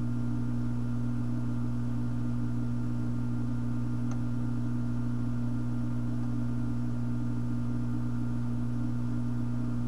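Steady low hum from workbench electrical equipment, a drone with a higher overtone above it, and one faint tick about four seconds in.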